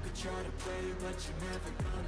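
Background music with a steady low bass line and a deep bass hit falling in pitch near the end.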